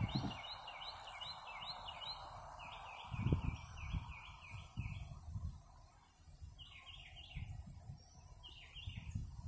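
A songbird singing runs of quick, repeated chirps, in bursts with short gaps. A soft hiss fades out over the first few seconds, and a few low thumps come through, the loudest about three seconds in.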